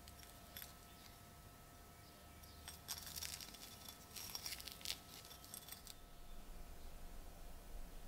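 Gloved hands handling a rusty iron axe head: faint rustling and light clicks, busiest from about three to six seconds in, over a faint steady hum.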